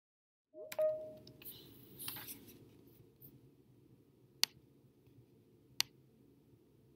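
Two sharp mouse clicks about a second and a half apart over a faint low room hum, with a brief tone and some rustling near the start.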